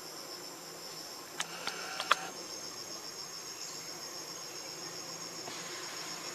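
Steady high-pitched chorus of forest insects, a fast pulsing trill, with a few sharp clicks about one and a half to two seconds in.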